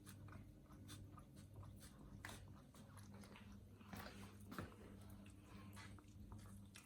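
Maine Coon cat eating raw rabbit mince with ground bone from a tub: faint, irregular wet clicks of chewing and biting, over a low steady hum.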